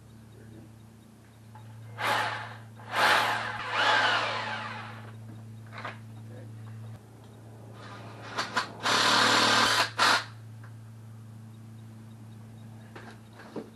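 Cordless drill run in several bursts: a short one, then a longer one whose motor spins down with falling pitch, then a couple of quick trigger taps and a steady one-second run. The drill is fastening a handrail bracket to a concrete wall.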